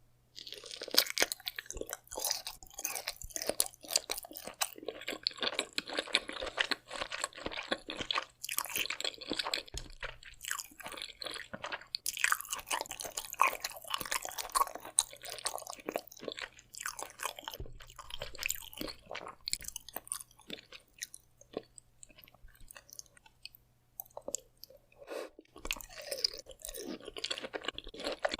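Close-miked chewing of raw scallop sashimi: wet, irregular mouth clicks and smacks, starting about a second in.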